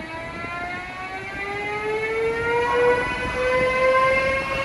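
Siemens Vectron (DSB Litra EB) electric locomotive accelerating: its traction converter and motors give a whine of several tones that slowly rises in pitch. It grows louder from about two seconds in.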